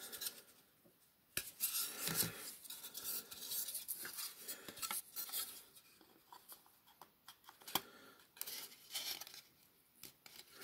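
Small hard plastic 1:18 scale barrier pieces being handled and fitted together: scattered sharp clicks and knocks of plastic on plastic and on the tabletop, with rubbing and scraping between them.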